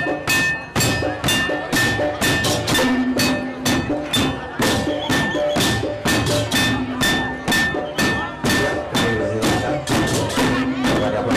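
Tek-tekan ensemble: many hollow bamboo and wooden tube drums (tektekan) struck with beaters in a fast, steady, interlocking beat. Ringing Balinese gamelan tones sound over the strikes.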